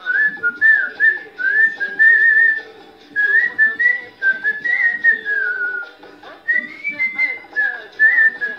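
A man whistling the melody of a Hindi film song in short, high phrases with slides between the notes, over a karaoke backing track.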